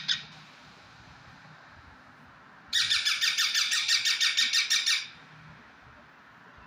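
Pet parrot calling: a short shriek at the start, then a loud rapid chattering screech of about eight quick notes a second for a little over two seconds, starting nearly three seconds in.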